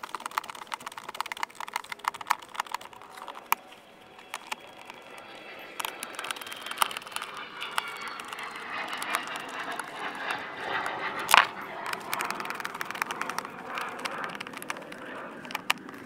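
Screwdriver backing the top-cover retaining screws out of a plastic GM air cleaner housing: rapid clicking and ticking of driver and screw against the plastic for the first few seconds, then a steadier scraping, with one sharp click about eleven seconds in.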